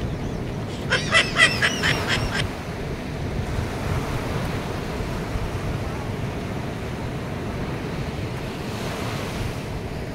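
Sea surf breaking and washing up the beach in a steady rush, with wind on the microphone. About a second in, a brief wavering call rises over the surf for about a second and a half.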